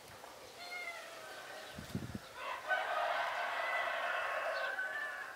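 A rooster crowing once: one long pitched call starting about halfway through and lasting a couple of seconds. Fainter short bird calls come before it, with a brief low thump just before the crow.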